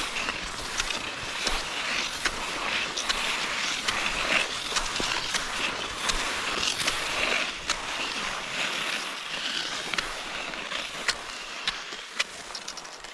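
Cross-country skis sliding over packed, snow-machine-tracked snow: a steady scraping hiss with many small sharp clicks and ticks scattered through it.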